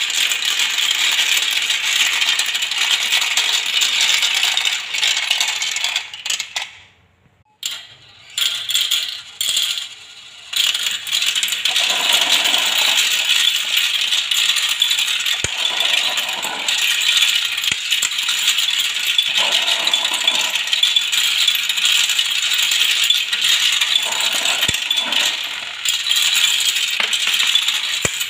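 Many small plastic balls rolling and clattering down a plastic marble run's spiral tracks, a dense continuous rattle. It breaks off for about a second some seven seconds in, returns in patches, then builds back to a steady clatter.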